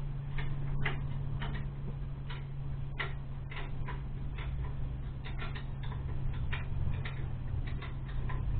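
Light, irregular metallic clicks and taps of a spanner and nuts as an exhaust is bolted onto a small pit-bike engine, over a steady low hum.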